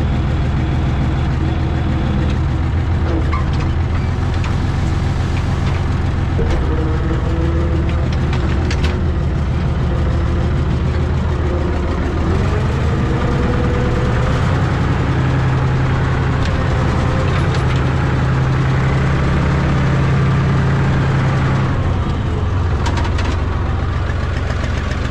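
Farm tractor's diesel engine running steadily while its tipping trailer, heavily loaded with stumps and branches, is being emptied. The engine rises in pitch about halfway through as the tractor pulls forward, and eases off near the end.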